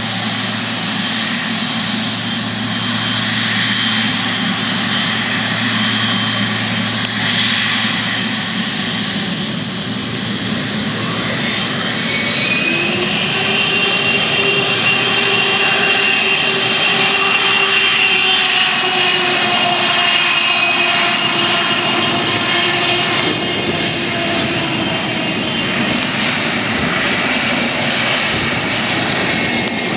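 Boeing 777's twin jet engines running as it taxis and turns on the runway, a steady jet noise. About 12 seconds in, a higher whine sets in and the engines grow a little louder.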